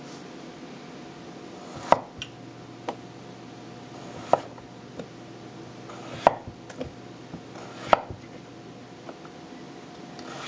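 Teruyasu Fujiwara Japanese chef's knife slicing through a potato and knocking on a wooden butcher-block board: four sharp knocks about two seconds apart, with lighter taps in between.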